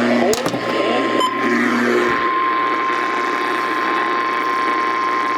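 Emergency alert warning tone: a single steady pitch held for several seconds over a hiss of radio static, the alarm that comes before a broadcast tornado warning. Other programme audio overlaps it briefly at the start.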